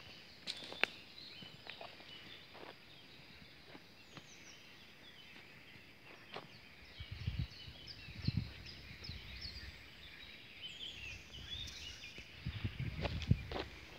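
Songbirds calling and singing, a busy run of short high chirps and quick falling notes, with low thumps of footsteps in two spells near the middle and near the end.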